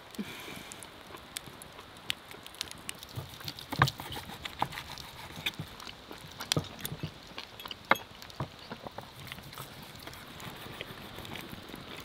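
Knife and fork clicking and tapping on a wooden cutting board as a tomahawk steak is cut, in an uneven run of small sharp clicks with a few heavier knocks, the loudest about four and eight seconds in.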